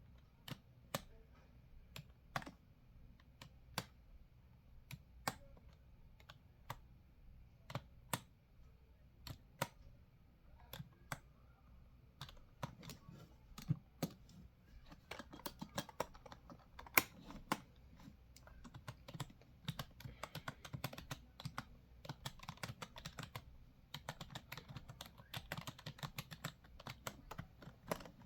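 Computer keyboard typing: slow, separate keystrokes at first, then fast, continuous typing from a little under halfway through.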